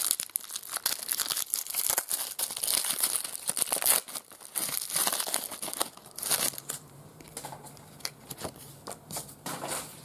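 Foil trading card wrapper of a 2002 Artbox Spider-Man FilmCardz pack being torn open and crinkled by hand: a dense run of crackling and tearing for about six seconds, then fewer, scattered crinkles.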